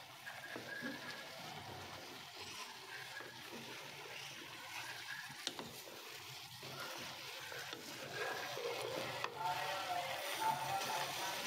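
Cauliflower florets and potato cubes being stirred and turned with a wooden spatula in a frying pan over a faint sizzle of oil and masala. It grows a little louder about eight seconds in.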